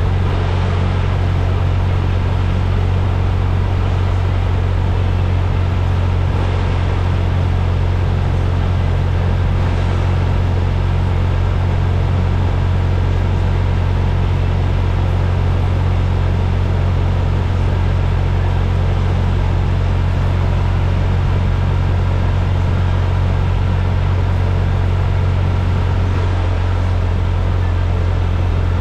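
Steady low drone with an even hiss over it, unchanging in pitch and level.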